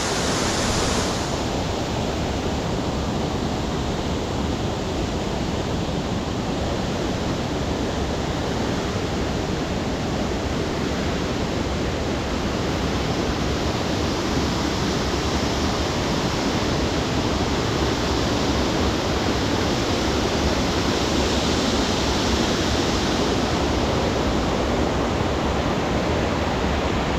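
Waterfall and whitewater rapids rushing, a loud steady roar of falling water heard close by.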